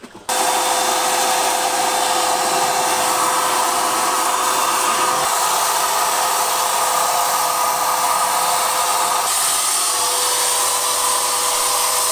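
Electric paint spray gun's turbine blower switched on about a quarter second in and running steadily, blowing air through the hose and gun as wood stain is sprayed. A loud even hiss with a steady hum-like tone in it.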